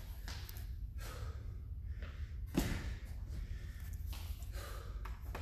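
A man breathing hard, out of breath from exertion during a workout. About two and a half seconds in there is a single dull thump.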